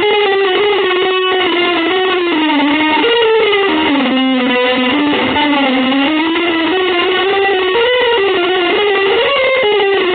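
Electric guitar playing a slow improvised line of long, sustained notes that slide and bend up and down in pitch.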